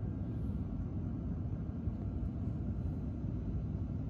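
Steady low outdoor rumble, even throughout, with no distinct calls or impacts standing out.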